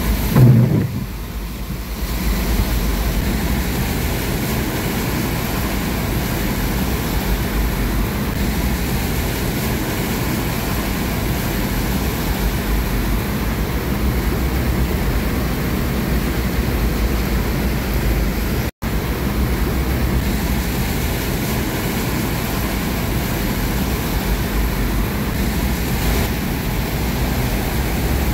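Heavy rain falling steadily, with wind buffeting the microphone and a low rumble about half a second in. The sound drops out for an instant about two-thirds of the way through.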